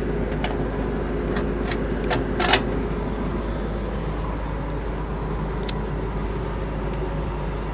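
An engine running steadily, with a scatter of sharp clicks and a metallic clink about two and a half seconds in as tangled old fence wire is pulled free of a combine's draper header.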